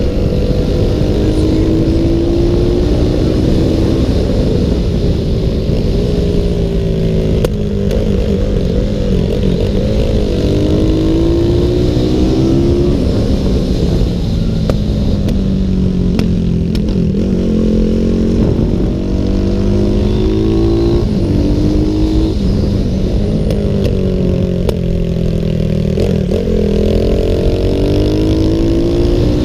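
CG 300 stock-class racing motorcycle's engine at race revs, heard onboard. Its pitch climbs repeatedly through the gears and falls back off into the corners, under a steady rush of wind and road noise.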